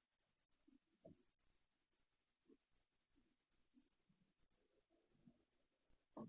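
Faint high chirping from a cricket, in short rapid trills repeating a few times a second. Soft low knocks come about a second in, and a sharper knock comes near the end.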